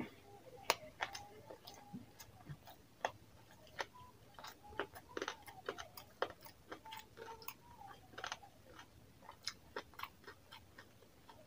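Close-up eating sounds: wet chewing and mouth clicks, with fingers squishing rice and curry gravy, as irregular sharp clicks with no steady rhythm.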